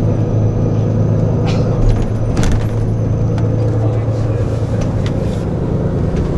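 Steady engine drone and road noise of a tour coach heard from inside the cabin while it drives along, with a couple of brief clicks about two seconds in.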